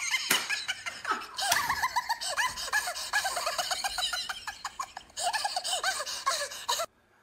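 A woman laughing in long, high-pitched peals, with a couple of sharp claps in the first second or so; the laughter cuts off suddenly near the end.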